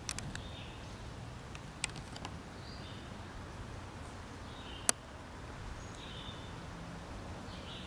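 Quiet outdoor ambience: a steady low rumble with short, high chirps every second or so, and a few sharp clicks, the loudest about five seconds in.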